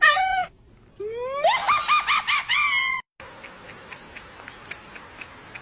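A cat meowing: a short meow, then about a second in a run of rapid, wavering high cries that stops abruptly near the middle. After that only faint background with light clicks.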